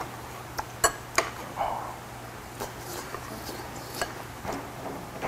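Metal utensils clicking against a small bowl during eating, with two sharp clicks about a second in and a few fainter ones later, over a low steady hum.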